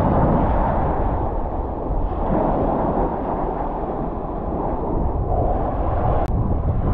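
Small waves breaking and washing up a sand and pebble shore, with wind buffeting the microphone. A single sharp click about six seconds in.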